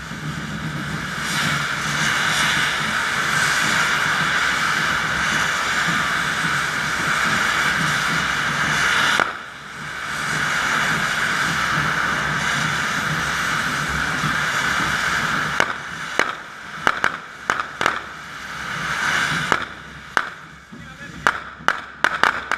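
Firework fountains (carretilles) on a fire-dragon festival figure, hissing steadily as they spray sparks, with a short break about nine seconds in. From about sixteen seconds the hiss fades into a string of sharp bangs, the fireworks' end charges going off one after another.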